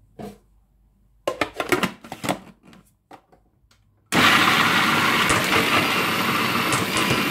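Plastic clicks and knocks as the lid is fitted onto a Bosch food processor bowl, then about four seconds in the motor switches on abruptly and runs steadily, loud, chopping soaked black-eyed peas with no water added.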